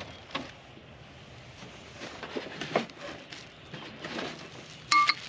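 Unboxing and handling of table saw parts: scattered light knocks, clunks and rustling. Near the end comes a short, sharp electronic beep.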